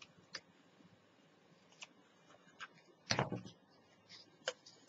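Cardstock and chipboard pieces being handled on a cutting mat: a few faint clicks and taps, with one louder rustling knock a little after three seconds in.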